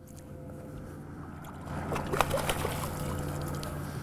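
Boat motor running with a steady hum, with water splashing and sloshing briefly about two seconds in.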